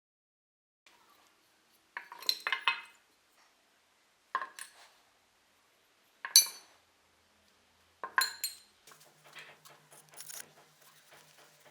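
Small metal parts clinking against each other and a hard surface as they are handled and set down, in four short groups of ringing clinks, the loudest about six seconds in. Fainter rattling and handling follow.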